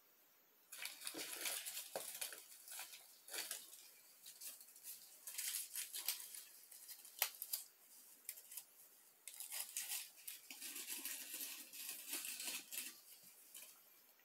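Irregular rustling and crunching as artificial plastic plants are handled with gloved hands and pushed down into decorative stones in a glass jar, with a sharp click about seven seconds in.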